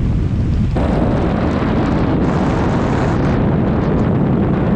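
Loud airflow rushing over a camera mounted outside a small plane in flight, with no clear engine note. About a second in, it switches abruptly to a brighter, harsher rush.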